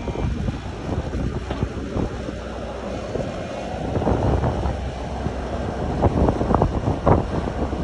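Heavy earthmoving machine's engine running steadily, with scattered clanks and knocks, several of them near the end, and wind on the microphone.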